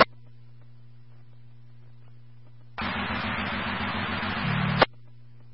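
Police scanner audio: a low steady hum, then about three seconds in a radio channel opens with a rush of static hiss and no voice, cut off about two seconds later by a short squelch-tail burst.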